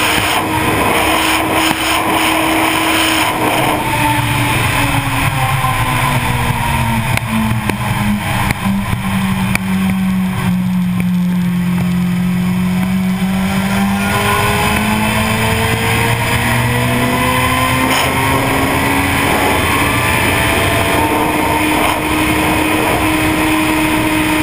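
Sport motorcycle engine at high speed under heavy wind rush. The engine note sinks steadily as the bike slows from about 237 to 137 km/h, then climbs again as it accelerates back to about 240 km/h.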